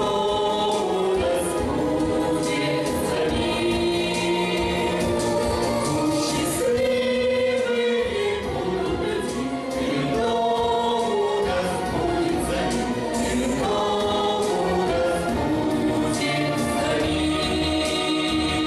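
A choir singing a slow song in Russian with musical accompaniment, the voices holding long notes.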